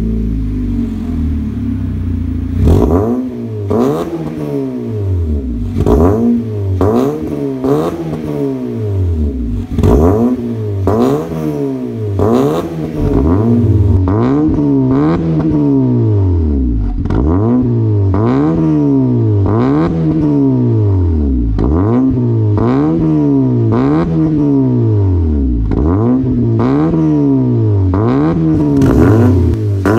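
2010 Honda Civic's four-cylinder engine with a full aftermarket exhaust system, running steadily for a couple of seconds and then revved over and over in quick throttle blips about once a second, each rising and falling in pitch.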